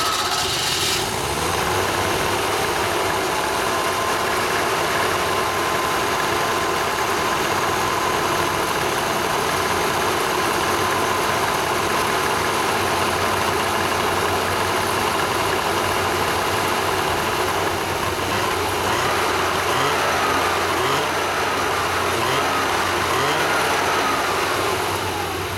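Freshly rebuilt Vespa 400 two-stroke twin-cylinder engine running on a test stand just after a cold start on choke, steady throughout, its speed wavering a little in the last few seconds. It has a new number two cylinder, and its rings are still bedding in.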